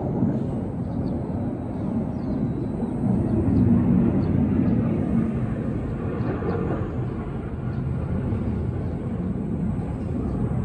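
Distant jet noise from the Blue Impulse team's Kawasaki T-4 jets overhead, a steady low rumble that grows louder about three seconds in and eases back a couple of seconds later.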